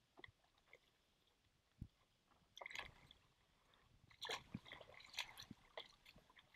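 Faint, scattered small splashes and squelches of shallow water as a stand-up paddleboard runs in to a sandy beach, with a few clusters of sloshing and dripping.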